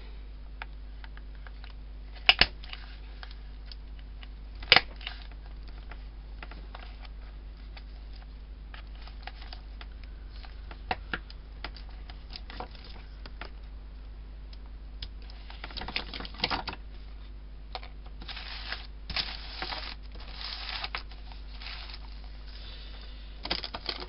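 Hands handling a paper art journal page: scattered light clicks and taps, with two sharp taps about two and a half and five seconds in, then paper rustling and sliding in the second half, over a steady low hum.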